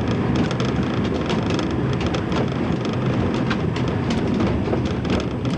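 Light diesel railcar running along the track, heard from the driver's cab: a steady engine hum and rolling rumble, with frequent small clicks and rattles from the wheels and the cab.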